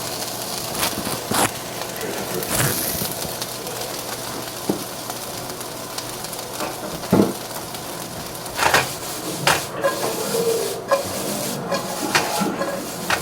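Steady sizzling hiss of food cooking in a hot pan, with scattered clicks and knocks of utensils against cookware.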